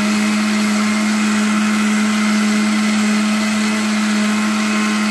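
Electric mixer grinder (mixie) running at steady full speed with a loud steady motor hum, grinding cooked onion-tomato masala to a paste in its steel jar.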